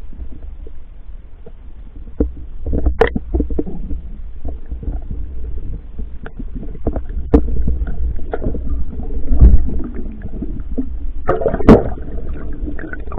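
Underwater sound picked up by a camera in its waterproof housing: a steady low rumble of water moving against the housing, with many scattered clicks and knocks and a few louder bumps.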